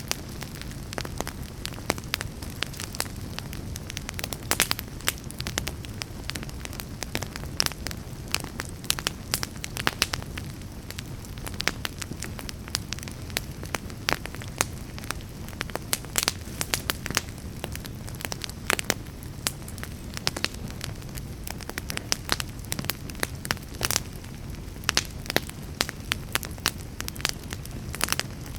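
Wood fire burning with a steady low rumble and frequent sharp, irregular crackles and pops.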